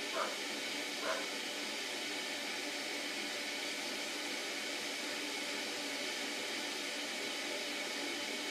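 Steady hiss of background noise, with two brief soft sounds about a second apart near the start.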